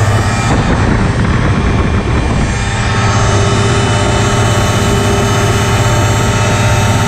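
Phantom X1 ultralight's engine and propeller running steadily in cruise flight, heard from the open cockpit with a rush of air over the microphone.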